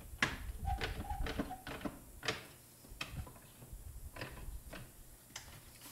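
Bar clamp being tightened on a freshly glued drawer, to hold it together while the glue dries. It makes a string of irregular clicks that thin out after the first couple of seconds, with a brief squeak about a second in.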